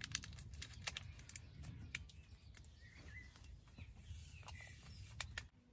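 Scattered light clicks and taps, with a few short bird chirps about three and four seconds in, over a low background rumble.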